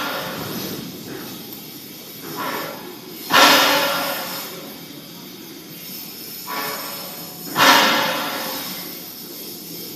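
Tube-to-tubesheet orbital welding machine at work: two sudden bursts of hiss about four seconds apart, each fading away over a second or so, with a softer burst shortly before each.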